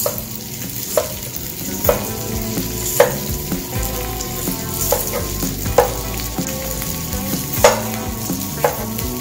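Diced food sizzling in a nonstick frying pan on a portable gas burner while a wooden spatula stirs it, knocking against the pan every second or so.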